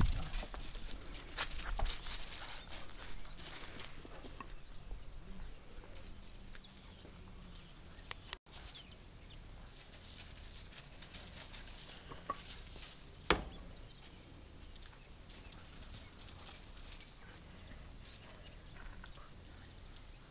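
Two dogs scuffling and tugging on gravel: scattered crunches and clicks of paws on the stones, busiest in the first few seconds, with one sharp knock a little past halfway. A steady high-pitched hiss runs underneath, and the sound drops out briefly about eight seconds in.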